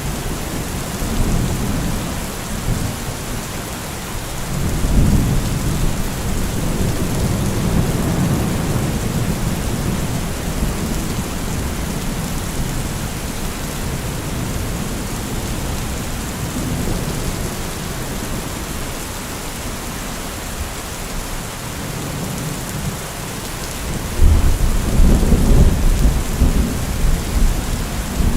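Steady rain hissing with rolling thunder: a low rumble swells about five seconds in and dies away, and a louder rumble breaks in suddenly near the end.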